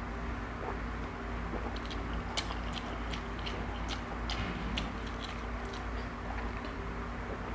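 A man drinking water from a glass in long gulps, with small irregular swallowing and mouth clicks over a steady low hum.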